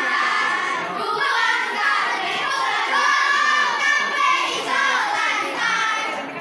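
A group of children singing and shouting a Pramuka scout yel-yel together, a chanted group cheer.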